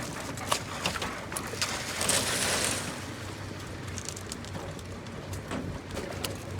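Construction work noise: a steady low machine hum under scattered knocks and clicks, with a louder rushing, scraping burst about two seconds in.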